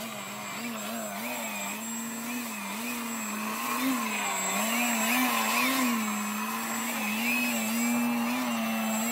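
Electric motor and propeller of a foam RC aerobatic plane hovering nose-up, a steady buzzing hum whose pitch wavers up and down as the throttle is worked. It grows louder as the plane hangs close by.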